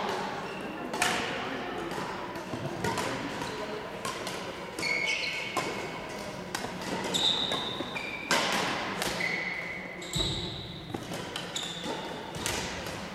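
Badminton rackets striking shuttlecocks in rallies on several courts at once: sharp, irregular smacks about every second or two, each echoing in a large sports hall.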